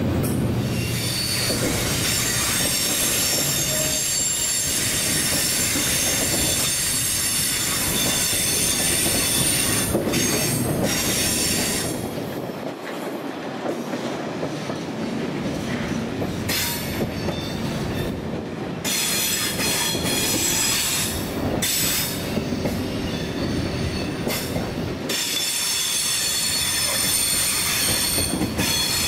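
A train running through a station, its wheels squealing on the rails with steady high-pitched ringing over a continuous rumble and rail clatter.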